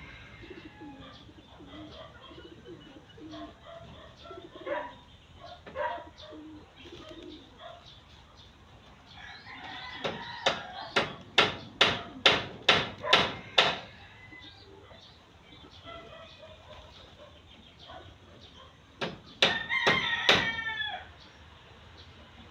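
Chickens calling: a fast run of about ten loud, sharp calls in the middle, then a longer call falling in pitch near the end, with softer scattered clucks between.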